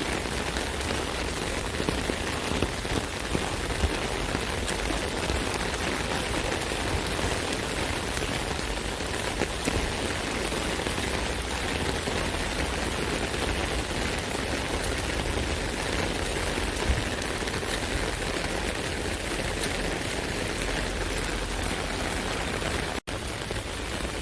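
Rain falling on an umbrella: a steady patter of drops, with sharper single hits scattered through it. Near the end the sound cuts out for a split second.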